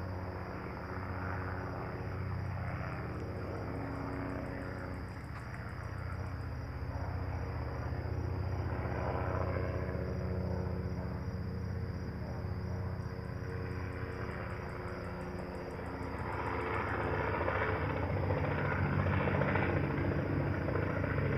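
Helicopter flying overhead: a steady rotor and engine drone that grows louder over the last few seconds as it comes closer.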